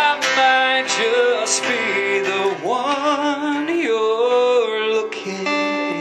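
A man singing long held notes that bend and slide in pitch, over acoustic guitar.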